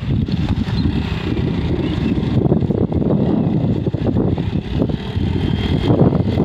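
A 125cc motorcycle engine running as the bike rides through shallow river water, its front wheel throwing up splashes.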